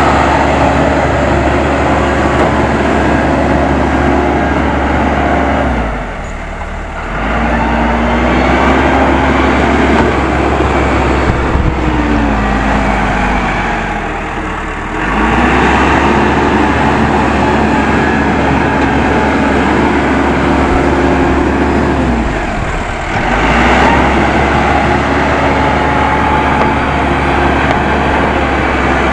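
Case 580M backhoe loader's diesel engine working under load. Its note drops and climbs back three times, about every eight seconds.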